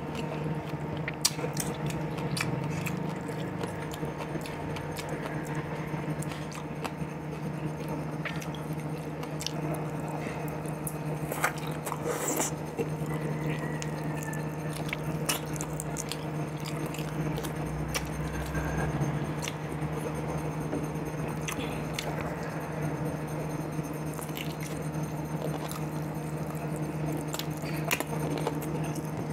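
Close-up eating sounds: chewing with scattered wet mouth clicks, and soft tearing as boiled chicken is pulled apart by hand. A steady low hum runs underneath.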